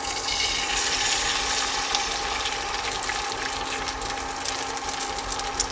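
Egg and sausage frying in hot oil in a frying pan: a steady sizzle full of fine crackles, with a faint steady hum underneath.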